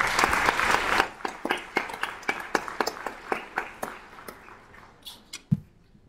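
Audience applause, dense at first and thinning into scattered claps that die away over about four seconds, with a single thump near the end.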